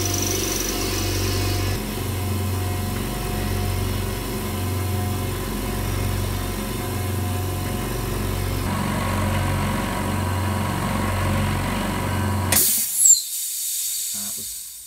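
Hyundai HY27550 50-litre silent oil-free air compressor running steadily with a low hum, pumping up its tank. Near the end the motor stops suddenly as the pressure switch cuts out at full tank pressure, followed by a click and a short hiss of air being released that fades away.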